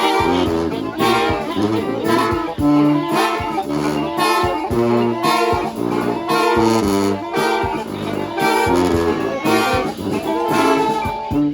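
A brass band playing live: horns play short rhythmic phrases over a pulsing bass line.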